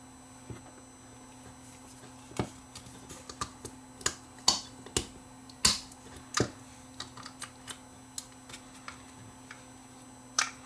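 Irregular small clicks and taps of a plastic security-camera housing and its circuit board being handled and pried apart by hand, the loudest about halfway through.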